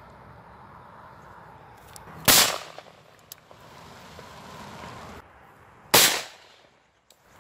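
Two shotgun shots about three and a half seconds apart, each dying away over about half a second.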